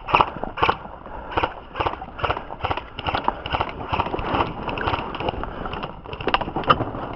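Footsteps of a person walking quickly over dry grass and rubble, about two steps a second, close to a body-worn camera.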